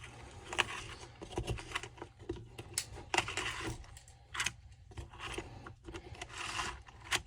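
Small metal saw parts and tools being handled on a workbench: scattered clicks, taps and light rattles at irregular intervals, with short bouts of scraping.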